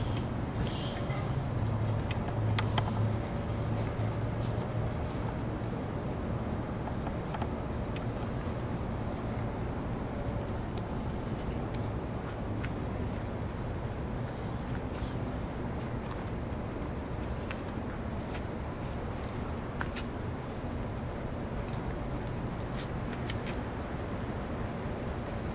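Night insects keeping up a steady high-pitched trill, over a low rumbling background that is strongest in the first few seconds.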